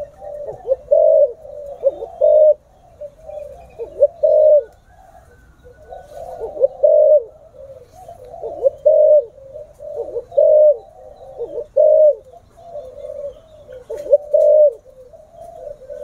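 Spotted dove (cu gáy) cooing powerfully, phrase after phrase of low, rolling coo notes with short pauses between them.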